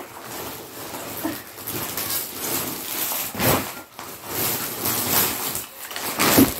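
Rustling and crinkling of a courier packet as it is picked up and handled, in uneven swells with a couple of louder rustles.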